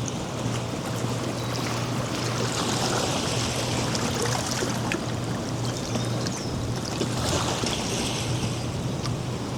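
Ocean waves breaking and washing up on a sandy beach, the surf swelling twice. Faint bird chirps come through, over a steady low hum.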